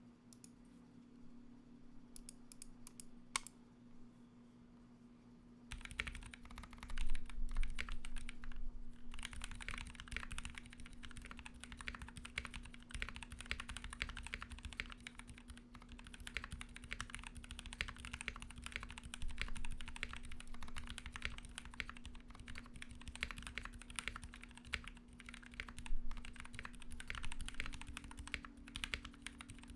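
Typing on a Royal Kludge RK68 mechanical keyboard with lubed, filmed Cherry MX Black linear switches and a foam-and-tape-modded case. A few scattered keystrokes come first, then steady, fast typing from about six seconds in, over a low steady hum.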